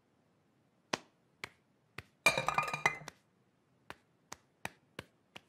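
A series of sharp clinks and taps spaced about half a second apart, with a brief loud cluster of ringing, pitched clinks about two seconds in.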